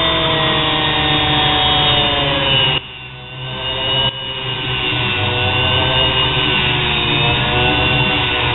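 Sewing-machine motor spinning a small diamond grinding wheel: a steady whine with several tones that drift slightly in pitch, as a steel welding rod is held against the wheel to sharpen its tip. The sound drops away abruptly about three seconds in and comes back about a second later.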